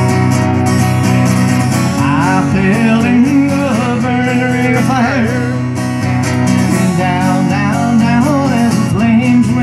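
Acoustic guitar strummed in a steady country rhythm, with a man's voice singing the melody over it from about two seconds in, amplified through a microphone and PA speaker.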